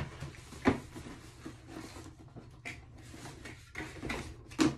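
Sneakers being handled and set down: a knock about a second in, light rustling, then a louder knock or two near the end.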